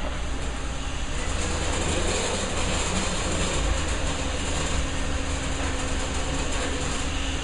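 Toyota Venza's front wheels spinning on free-running rollers of a traction test rig under engine power: a steady whir of tyres and rollers over a low engine rumble. The front wheels have lost traction while the all-wheel-drive system has yet to send power to the rear.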